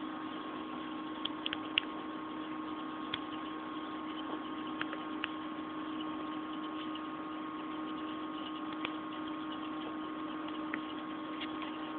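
A steady machine hum with two steady tones, one low and one higher, and a few faint, sharp clicks scattered through it.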